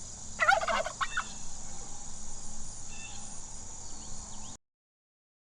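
A turkey gobbling once, a short rapid rattling call about half a second in, over a steady high-pitched background hiss. The sound cuts off abruptly near the end.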